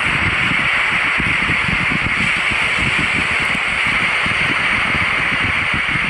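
Small waves on a calm sea washing up a sandy beach, a steady hiss, with an uneven low rumble of wind on the microphone.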